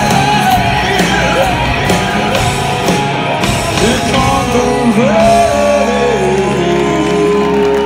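Live rock band playing: the singer's voice slides up and down in pitch over held guitar and bass chords, with drums.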